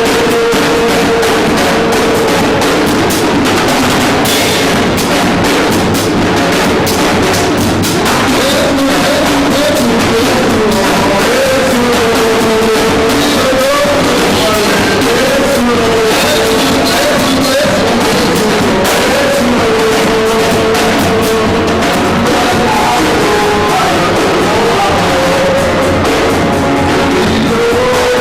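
Music with a drum kit keeping a steady beat under a wavering melody line.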